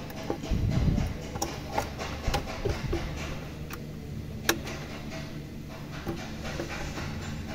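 Hands working on hoses and connectors in a car's engine bay: scattered sharp clicks and knocks of plastic and metal parts, with a heavier low rumble about half a second in, over a steady low hum.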